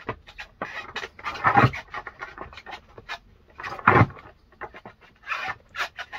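Skateboard clacking on a hard floor as a backside 180 pop shove-it is done: the tail pops, the deck and wheels knock down, and there is shuffling and scraping between the hits. The loudest knock comes about four seconds in.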